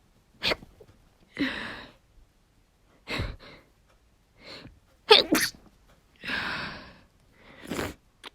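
A woman sneezing several times in a row, induced by tickling her nose with toilet paper, with short sharp bursts and breathy exhales between them. The loudest sneeze comes about five seconds in.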